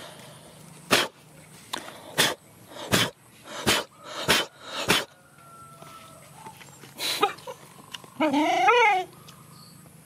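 Dog whining once near the end, a short high whine that wavers in pitch. Before it comes a run of about seven short, sharp knocks close to the microphone.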